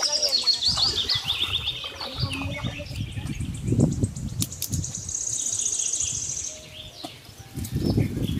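Birds singing outdoors: a string of short chirps stepping down in pitch in the first couple of seconds, then a fast high trill about five seconds in, over a low rumbling background noise.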